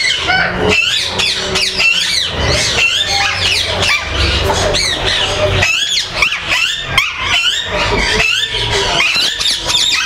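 A shedful of caged ringneck-type parakeets (Alexandrines and Indian ringnecks) squawking and screeching: many shrill calls overlapping, each rising and falling in pitch, with a low rumble underneath at times.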